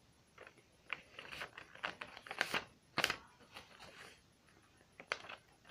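A sheet of paper rustling and crackling as it is folded in half and creased by hand, in short irregular scrapes, the sharpest about three seconds in.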